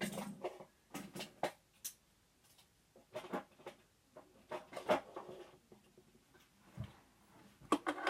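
Scattered faint clicks and taps of fidget spinners and other small objects being handled and picked up.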